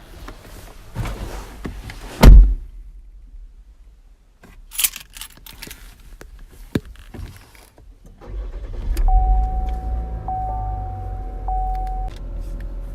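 Getting into a car: rustling, then a car door shutting with a loud thud about two seconds in, and car keys jangling. About eight seconds in, the engine cranks, starts with a surge, then settles to a steady idle, with a thin steady tone sounding over it for a few seconds.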